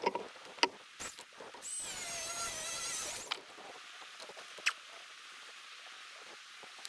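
Angle grinder with an abrasive cut-off wheel cutting steel rebar: a short cut of about a second and a half with a high, wavering whine, which stops just over three seconds in. Sharp metal clinks come before the cut and once more near five seconds.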